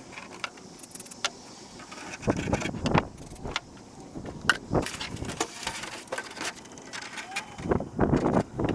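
Hard parts being handled and fitted by hand: irregular clicks, knocks and short rattles, busier from about two seconds in.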